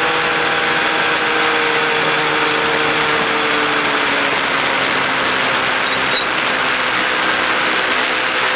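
600cc snowmobile engine in a mini buggy running steadily under way, its pitch easing down slightly over the first few seconds and then holding even.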